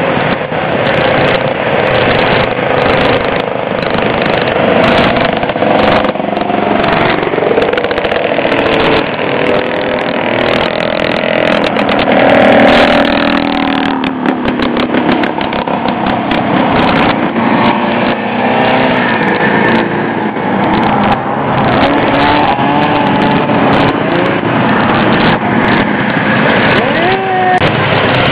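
Several vintage two-stroke snowmobile engines running together, their pitch rising and falling as the sleds rev and ride past.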